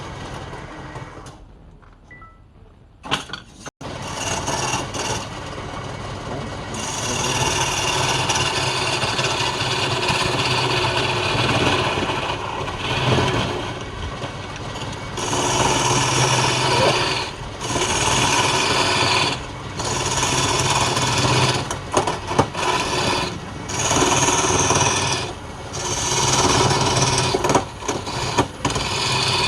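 Wood lathe running, with a tool scraping against the spinning wood in repeated passes that break off briefly every second or two, over the steady hum of the motor. Near the start the sound dies down low, with a sharp click a few seconds in before the work picks up again.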